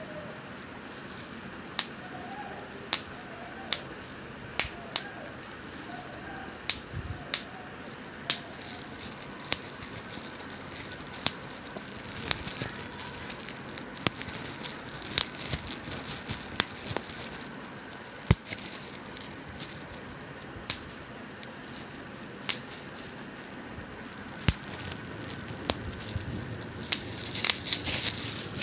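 Bubble wrap being pressed and handled: sharp single pops at irregular intervals, roughly one every second or two, over a soft plastic crinkling that grows louder near the end.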